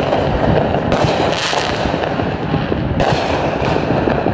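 Dense, continuous crackling and popping of many fireworks and firecrackers going off at once, with sharper bursts about a second in and again near three seconds.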